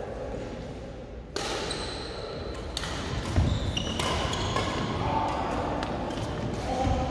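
Badminton rackets striking a shuttlecock in a doubles rally: several sharp hits start about a second in, echoing in a large sports hall.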